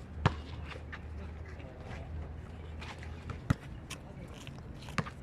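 Basketball bouncing on a court: three sharp thuds at irregular spacing, one just after the start, one about three and a half seconds in and one near the end, with faint voices in the background.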